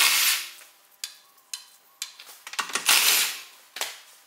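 Impact wrench spinning out the wheel bolts in short bursts: one at the start and another about three seconds in, with faint clicks between.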